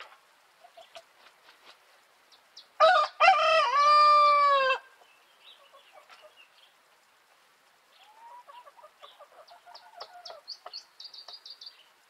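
A rooster crows once, loudly, about three seconds in, a single call lasting about two seconds. Later comes a softer run of quick clucking from chickens, with high chirps near the end.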